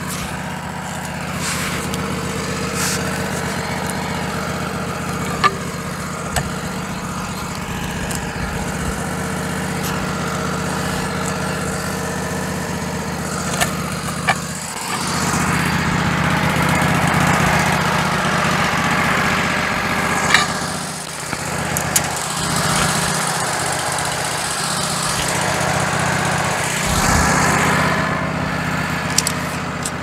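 Wood-Mizer LT15 Go sawmill's engine running steadily, with a few sharp knocks and clanks. About halfway through the sound gets louder and rougher for a stretch, then eases back near the end.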